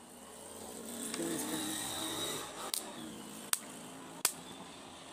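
Three sharp clicks in the second half, a little under a second apart, as a metal tip touches the solder points of the amplifier's converter circuit board, over faint background noise.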